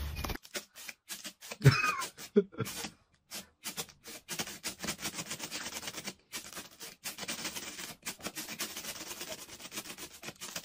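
A cat meows, one short cry falling in pitch about two seconds in, followed by a long run of quick rustling and scraping clicks.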